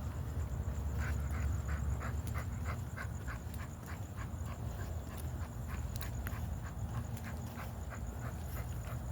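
Dog panting rhythmically, about three to four breaths a second, over a steady high-pitched cricket trill and a low rumble.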